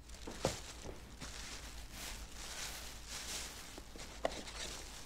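Faint rustling of a plastic takeout bag being handled and set out on a small table, with a few soft knocks.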